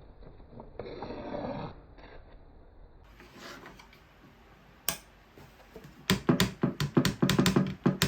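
Wooden parts being handled: a short scraping slide about a second in, a single sharp click near the middle, then a fast run of sharp wooden knocks and clicks, several a second, near the end.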